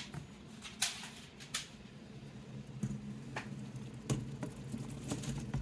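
Water at a rolling boil in a stovetop water-bath canner, with a handful of sharp clicks and taps as a filled glass canning jar in a jar lifter is moved and lowered in among the other jars. A steady low hum runs underneath.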